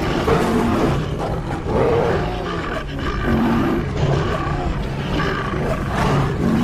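Wild animal roars and calls, several overlapping at once in a continuous jumble.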